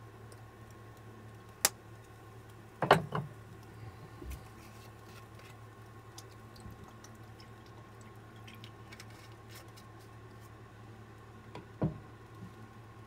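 A glass seasoning bottle being handled and shaken over a pan: a sharp click, then a quick cluster of knocks about three seconds in, and another knock near the end, over a low steady hum.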